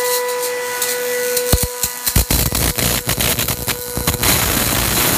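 Homemade Tesla coil spark gap circuit powered up: a steady high whine, then sharp irregular spark snaps from about a second and a half in, building after about four seconds into a continuous loud crackling hiss as the spark gap fires.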